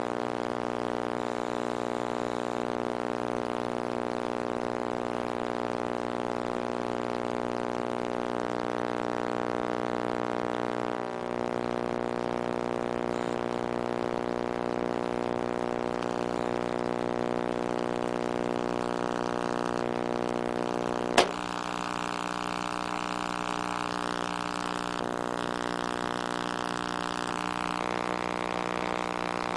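Microwave oven running: a steady electrical hum. About two-thirds of the way through there is a single sharp pop, after which the hum's tone shifts slightly.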